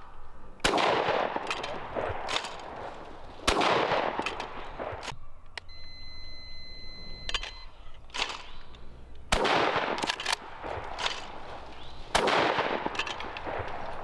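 Four shotgun shots in two pairs: two shots about three seconds apart, a longer pause, then two more about three seconds apart. Each shot trails off in an echo lasting about a second.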